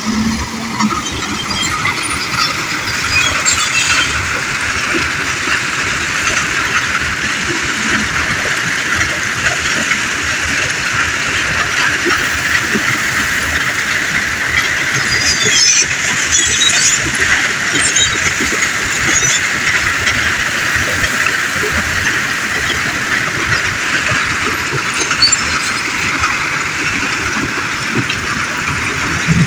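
Hyundai HL665 wheel loader working gravel: a steady loud rushing hiss of machinery, with gravel rattling and clattering about halfway through as the bucket load pours into the dump truck's bed.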